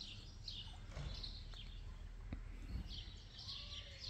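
Small garden birds chirping over and over in short, high notes, with a steady low rumble underneath and a couple of soft knocks about halfway through.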